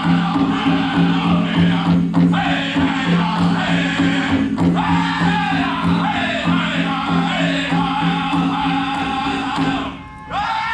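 Powwow drum group performing a chicken dance song: a group of singers over a steady, evenly repeated beat on a big drum. Near the end the song briefly drops out, then picks up again.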